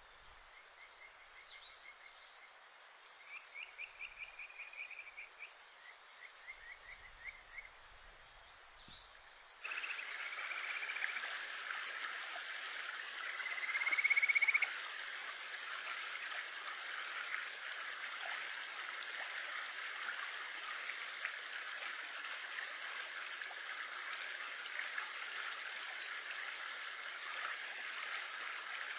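Kajika frogs (Japanese stream frog, Buergeria buergeri) calling: runs of short, high, whistle-like pulsed notes over the steady rush of a stream. About ten seconds in, the stream noise grows louder, and a rising trill a little later is the loudest call.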